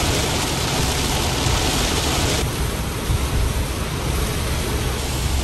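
Heavy downpour: a steady hiss of rain with a low rumble underneath, the hiss easing slightly about two and a half seconds in.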